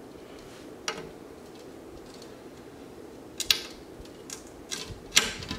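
Razor blade cutting the silicone seam of a glass aquarium: a few short, sharp clicks and scrapes of the blade on the glass at uneven intervals, the loudest near the end.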